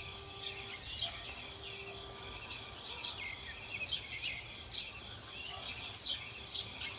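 Birds chirping outdoors: many short, high chirps repeated every half second or so over a faint steady background hiss.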